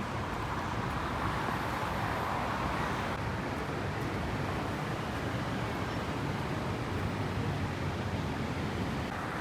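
Steady city road traffic noise, a continuous wash of cars running past, swelling briefly in the first few seconds.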